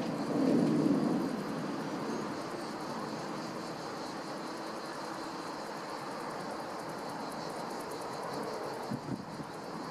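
Distant jet engine noise from a Boeing 767-300 climbing high overhead: a steady, even rumble, with a brief louder low swell about half a second in.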